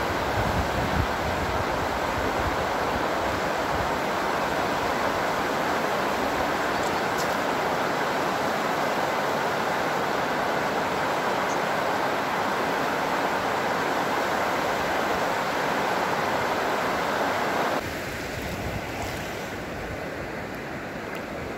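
Water rushing steadily over a reservoir weir spillway. About 18 s in the sound drops to a quieter, thinner flow of water.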